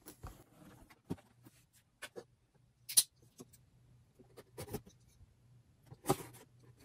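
Plastic shrink-wrap on a cardboard game box being slit with a small knife and handled: scattered crackles, scrapes and taps, with louder crackles about three and six seconds in.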